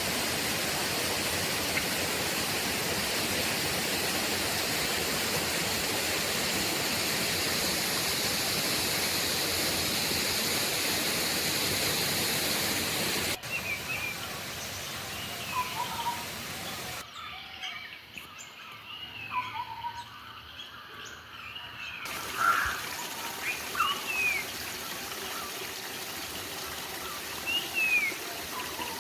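Steady rush of flowing water for the first half, then a sudden change to a quieter rainforest background with wild birds giving short, scattered chirps and whistled calls.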